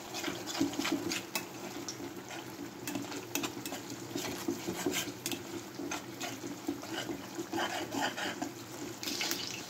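Perforated metal spoon scraping and clinking against a kadai in irregular strokes, stirring masala that is frying in oil, with a light sizzle underneath.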